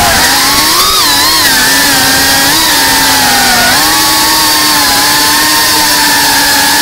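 FPV racing quadcopter's motors and propellers buzzing in flight, the pitch rising and falling with the throttle: it climbs about a second in and drops briefly a little before the middle.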